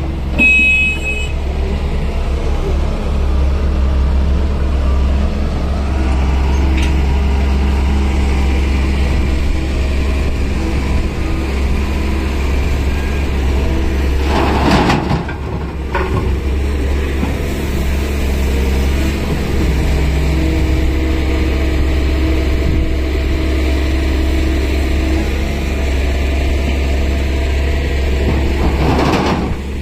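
Hydraulic crawler excavator's diesel engine running steadily under load as it swings and dumps soil. There is a brief high squeal just after the start, and short rushes of soil pouring from the bucket about halfway through and again near the end.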